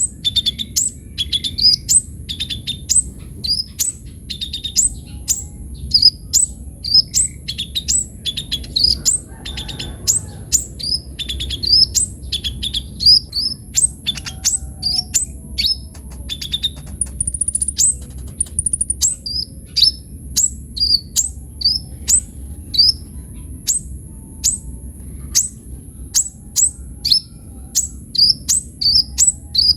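Kolibri ninja sunbird singing non-stop, in full voice: a rapid, unbroken string of short, sharp, high-pitched chirps and twitters, about two a second. Under it runs a faint steady high whine and a low background rumble.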